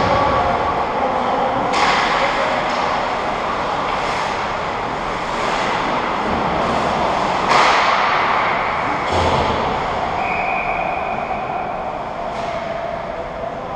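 Ice hockey game in a large arena: a steady wash of rink noise with a few sharp clacks of sticks and puck, the loudest about halfway through.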